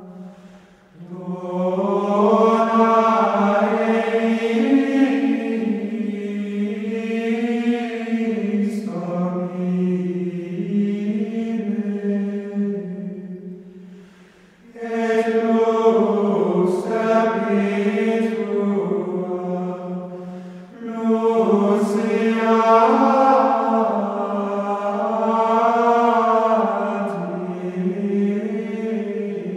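Slow plainchant in the manner of monks' sung prayer: long, held vocal phrases moving in small steps of pitch. Short breaks come about a second in, around the middle, and about two-thirds of the way through.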